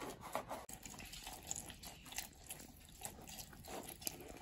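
Mandarin half pressed and twisted by hand on a plastic reamer juicer: a slimy, wet squishing of pulp with juice dripping, in short irregular strokes.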